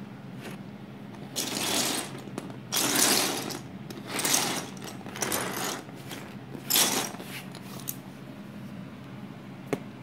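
Plastic wheels of a small Lego car rolling on a wooden floor as it is pushed back and forth by hand: five short rattling runs in the first seven seconds, then a single click near the end.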